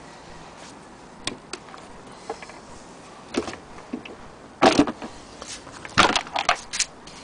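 Handling noise: scattered light clicks and knocks, with two louder bursts of clatter, about halfway through and again about six seconds in, as objects on a table are picked up and moved.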